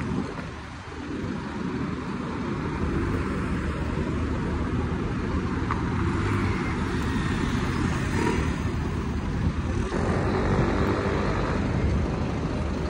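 City street traffic: a steady rumble of cars and trucks, swelling slightly as a vehicle passes about eight seconds in.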